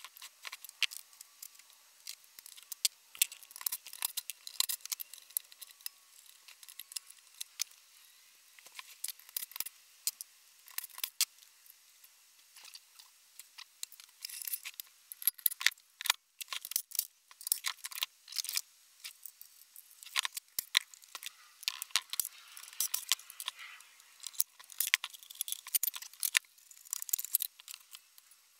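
Small metal engine parts and hand tools clinking and rattling as a Honda GX160 engine is taken apart by hand: scattered sharp clicks and clinks, each one short.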